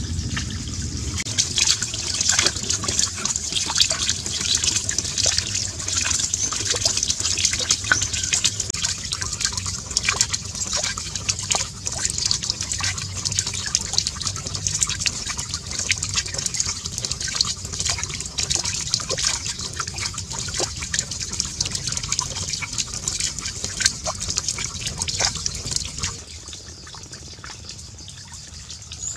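Water splashing and trickling steadily, thick with small drips and splashes, as a miniature water wheel turns and sheds water into a small pond. It falls away to a quieter hiss near the end.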